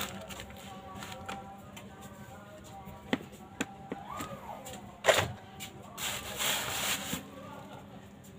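A few small clicks and knocks as a phone and tools are handled on a workbench. The loudest knock comes about five seconds in, followed by a burst of rustling about a second later.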